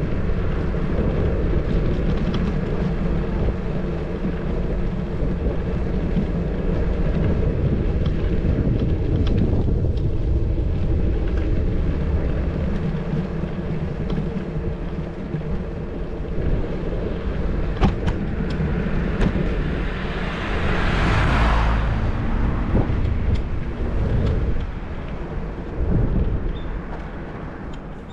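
Wind rumbling on a bicycle-mounted GoPro's microphone while riding, with steady road and tyre noise. About two-thirds of the way through, a vehicle passes, its noise swelling and fading.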